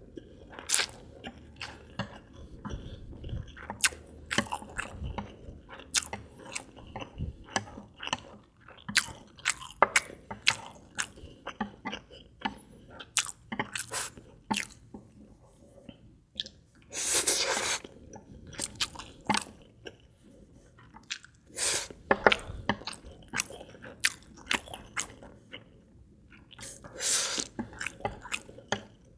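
Close-miked eating of Indomie Mie Goreng noodles and egg: steady chewing with many small wet clicks and smacks. In the second half, three longer, louder noisy bursts come about five seconds apart.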